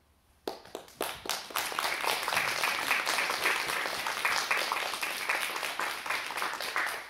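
Audience applauding: a few separate claps about half a second in, swelling into dense steady clapping that thins out near the end.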